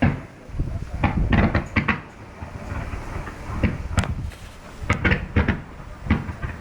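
Fireworks going off: about ten sharp bangs with short echoing tails, several coming in quick clusters.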